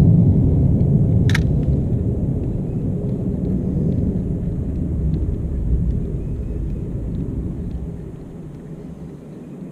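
Low rumbling wind noise on the microphone, easing off over the last couple of seconds, with one sharp click about a second in.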